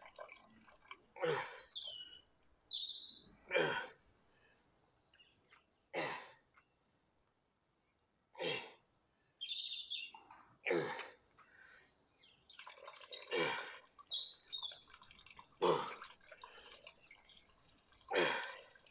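Hard, rhythmic exhales of effort, one about every two and a half seconds in time with dumbbell curl reps. Small birds chirp now and then between breaths.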